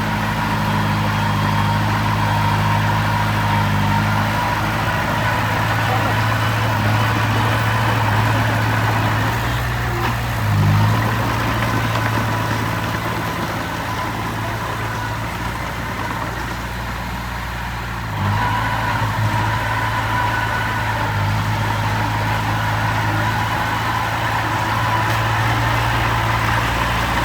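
Heavy diesel engine of construction machinery running steadily, with a brief change in its note about ten seconds in, a quieter stretch after it, and louder running again about two-thirds of the way through.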